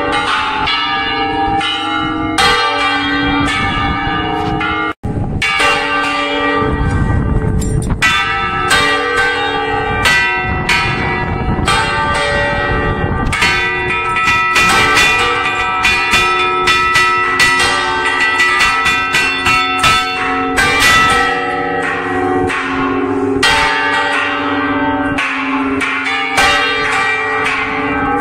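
Several church bells swung full circle on wooden yokes in a Spanish general peal (volteo), their clappers striking rapidly and overlapping in a continuous loud ringing, heard up close in the belfry.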